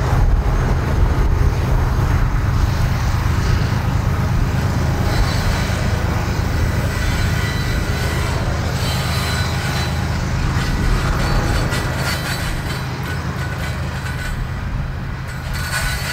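Freight train rolling past: a loud, steady low rumble of wheels on rail, with faint high-pitched wheel squeal, easing a little near the end.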